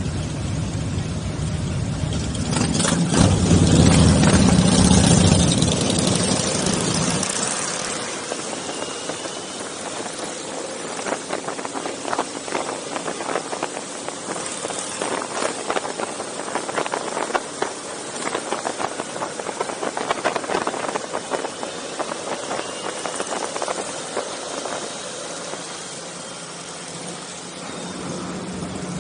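Motorcycle engines running, with a deep rumble that is loudest for about the first seven seconds and then drops to a lighter, rattly running sound.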